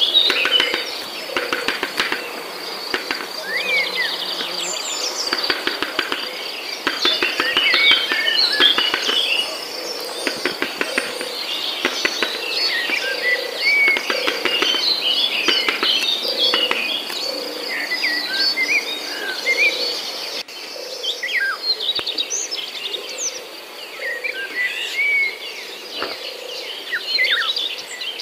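Small birds chirping and calling in quick short notes over a steady high insect trill.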